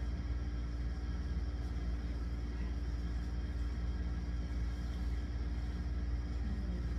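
Steady low mechanical hum with a constant droning tone, unchanging throughout.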